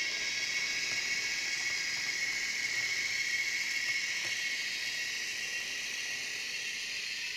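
Bemo model train of a Rhaetian Railway electric locomotive with panorama coaches running through the station, giving a steady hissing whir.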